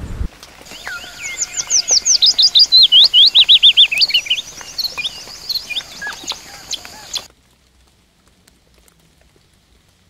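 A songbird singing a fast run of loud notes, each sliding down in pitch, over a faint steady high hum. The song cuts off suddenly about seven seconds in.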